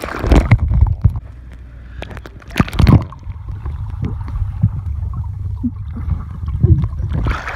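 A person diving into a swimming pool: a loud splash as she enters the water, then muffled underwater rumbling and gurgling heard from below the surface. A second loud rush of water comes about three seconds in.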